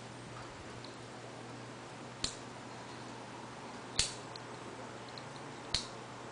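Three sharp plastic clicks, roughly two seconds apart, from a retractable micro-USB cable reel being handled as its cable is pulled out, the spring reel's ratchet catching; a faint steady hum lies underneath.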